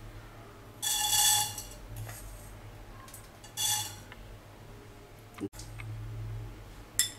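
A metal spoon clinking and scraping against the dishes as fenugreek seeds are spooned into a dry kadai, in two short ringing bursts about a second in and near four seconds, with a sharp tick near the end.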